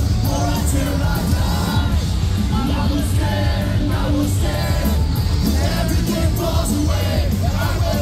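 Live metalcore band playing loud, with pounding drums and electric guitars under yelled and sung vocals.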